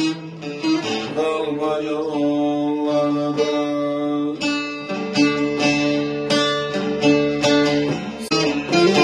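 Bağlama (Turkish long-necked saz) playing a quick strummed and picked instrumental passage of a Turkish folk tune, with a steady low note ringing underneath the melody.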